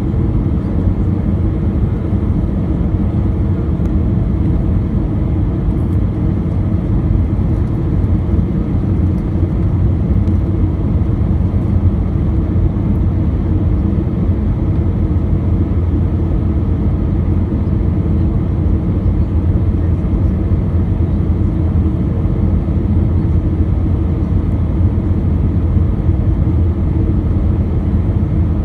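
Airbus A320 airliner cabin noise: the steady, low rumble of engines and airflow heard from inside the cabin during the approach to landing.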